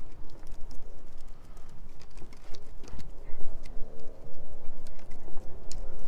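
Footsteps on a wooden boardwalk: the claws of two Korean Jindo dogs ticking and pattering irregularly on the boards as they trot on leash, with a person's steps alongside, over a steady low rumble.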